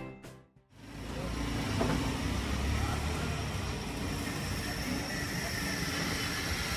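Steady outdoor street noise: a constant hum of traffic with faint distant voices, coming in about a second in after the tail of music fades out.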